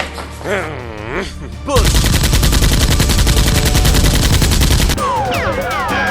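Rapid automatic gunfire sound effect: a dense, loud burst of shots lasting about three seconds, starting a couple of seconds in and cutting off suddenly. Before it come warbling sliding tones; after it, a run of falling whistle-like tones.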